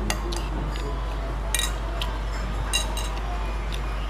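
A metal spoon clinking against a ceramic bowl of fried noodles several times, with short ringing clinks, the loudest about a second and a half in and again near three seconds, over a low steady background hum.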